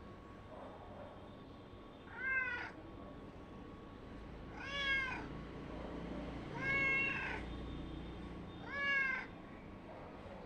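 Domestic cat meowing four times, about two seconds apart, each meow rising then falling in pitch, the third a little longer than the rest.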